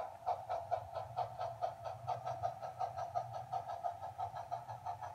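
HO scale model freight train rolling past: its wheels click rapidly and evenly over the track, about six clicks a second, over a low steady hum.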